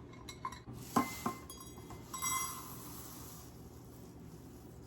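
Two sharp clinks against a bowl, then a rustling hiss lasting about a second as Rice Krispies are poured in from a measuring cup.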